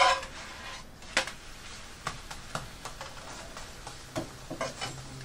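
Scattered light clicks and taps of a spatula and a non-stick frying pan as a crepe is handled and turned, with a louder clatter right at the start.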